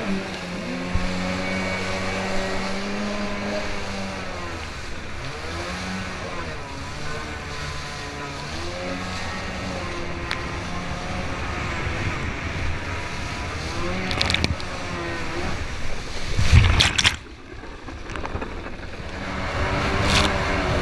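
Kawasaki JS550 stand-up jet ski's two-stroke twin engine running at speed, its pitch rising and falling as the throttle changes over the rush of water and spray. About sixteen seconds in, a loud splash of water hits, then the sound drops for a couple of seconds before the engine picks up again.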